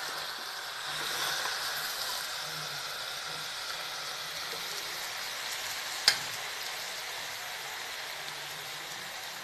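Hot carrot and potato sabzi sizzling steadily in a pressure cooker just off the flame, while it is ladled out. A single sharp clink of the ladle about six seconds in.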